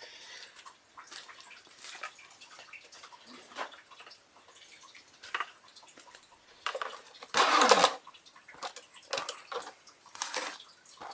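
Small plastic spinning-top parts being handled: scattered clicks and rustles, with one louder rustling burst about seven seconds in.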